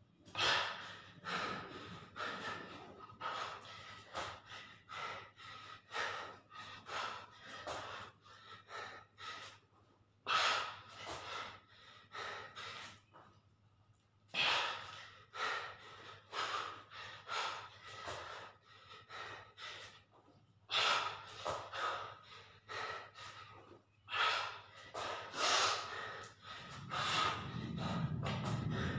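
A man panting hard while he catches his breath between sets of push-ups. Runs of quick breaths last several seconds, with short pauses between them, and a low rumble comes in near the end.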